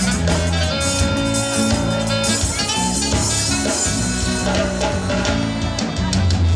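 Live band playing an instrumental passage: drum kit, bass line and keyboard, with no singing.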